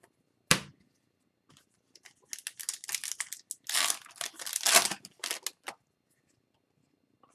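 Foil wrapper of a hockey card pack being torn open and crinkled: a run of crackling from about two to six seconds in, loudest near the middle. A single sharp tap about half a second in.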